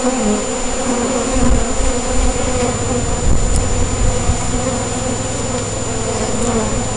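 Honeybees buzzing over an open hive, a steady hum, with a low rumble underneath from about two and a half seconds in.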